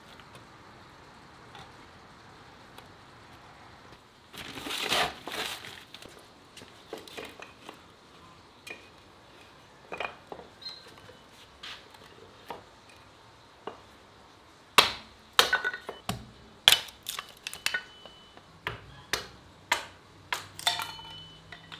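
Hatchet splitting small pieces of firewood into kindling on a wooden chopping block. A series of sharp chops and wood cracks comes quickly in the second half, after a clatter of wood pieces about four seconds in.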